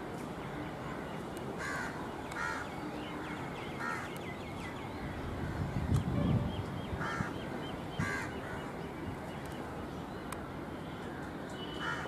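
Crows cawing in single harsh caws a second or more apart, with a small bird chirping in quick high series between them. A brief low rumble comes about halfway through.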